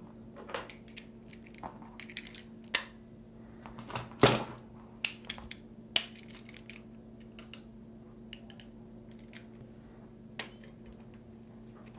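Metallic clinks and clicks of vise-grip locking pliers being handled, adjusted and clamped onto a steel drain-snake cable, the loudest clank about four seconds in, then only occasional small clicks.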